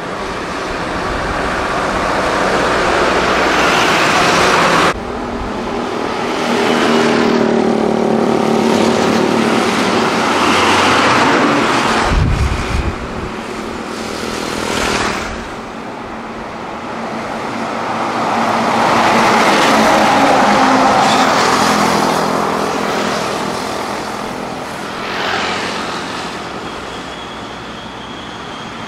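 Busy road traffic with heavy trucks and motorcycles passing one after another, the engine sound swelling and fading as each goes by. The sound changes abruptly about five seconds in, and a deep engine rumble stands out around the middle.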